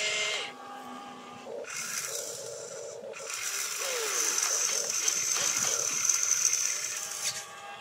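Geared electric motors of an RC tracked excavator whirring as the boom lifts, the upper body slews and the bucket opens. The motor sound starts and stops several times as each move is made.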